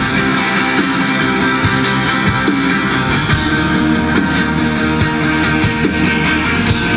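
Rock band playing live: drum kit, bass guitar and amplified acoustic guitar.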